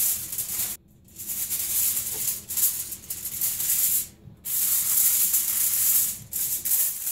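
A sheet of aluminium foil crinkling and rustling as it is pulled from its box and spread out flat, with two brief pauses, about a second in and about four seconds in.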